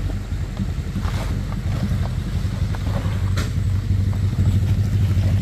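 Small pickup truck's engine running at low revs as it crawls over a rutted dirt road, a low drone that grows gradually louder toward the end.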